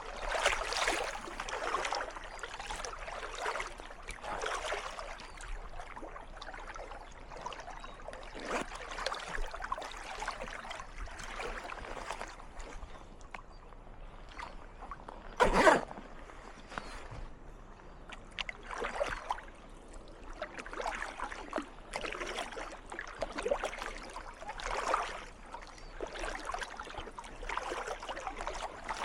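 Kayak paddle strokes splashing in calm water, one dip every second and a half to two seconds. One much louder, sharper splash comes about halfway through.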